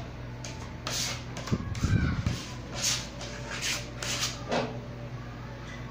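Hand rubbing strokes across a plywood tabletop: several short, soft swishes at uneven intervals over a steady low hum.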